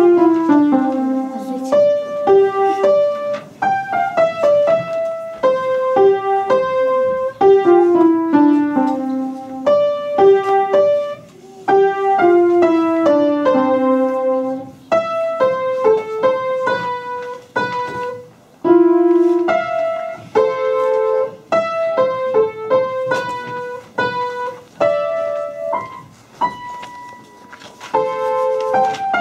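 Upright acoustic piano played solo: a melody of struck notes with several falling runs, pausing briefly about two-thirds of the way through.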